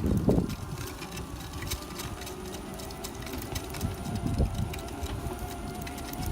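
Inmotion V8 electric unicycle running under a rider: a thin steady motor whine with low rumble and irregular clicking and squeaking from the wheel. The owner traces the squeak and wobble to a tyre not seated evenly on the rim.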